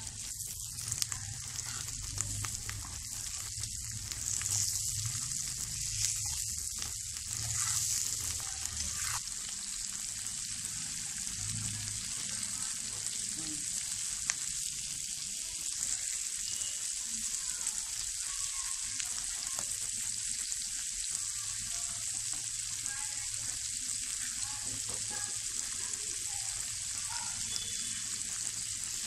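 Chopped onion and green beans sizzling in hot oil in a black kadai, a steady hiss with the occasional scrape and click of a metal ladle stirring in the pan.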